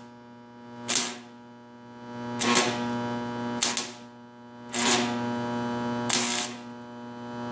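Stick welding arc crackling in short runs of about a second, struck again and again, with a sharp burst at each strike. A 308 stainless rod is being used to fill a crack in thin stainless exhaust tubing that melts away easily. A steady electrical hum runs underneath.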